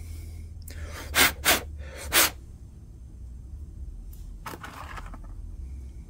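A person's short, sharp breaths close to the microphone: three in quick succession between one and two and a half seconds in, and a softer one near five seconds, over a low steady hum.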